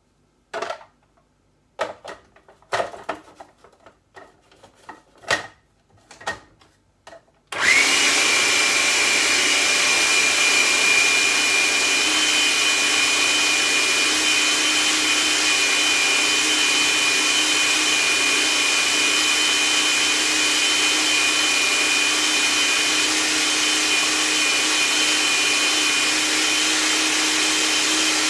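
A few knocks and clicks, then about seven seconds in an electric food processor starts abruptly and runs steadily at speed with a high whine, grinding a thick chickpea-and-herb falafel mixture.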